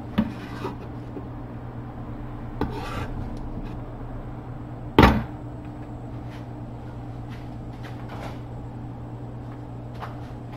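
Kitchen handling noises: a few sharp knocks and clatters of things set down and moved on the counter, the loudest about five seconds in, over a steady low hum.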